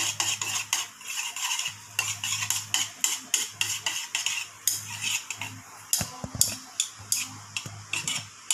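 A utensil tossing oiled spaghetti in a ceramic bowl, clinking against the bowl in quick, uneven taps, about three or four a second. The oil is being worked through the cooked pasta so it won't stick.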